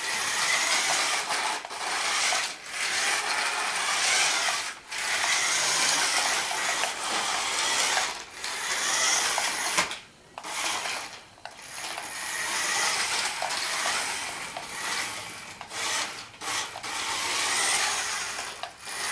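The small electric drive motor and plastic gearbox of a 1:24 scale New Bright Grave Digger RC monster truck whirring as it drives, stopping and starting again many times.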